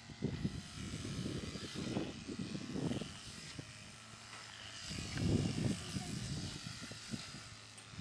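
Electric sheep-shearing handpiece buzzing as a sheep is shorn, under irregular low rumbling that is strongest in the first three seconds and again about five seconds in.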